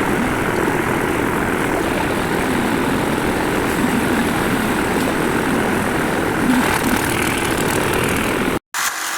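A machine engine on a construction site running steadily in a dense, even drone, cut off abruptly just before the end.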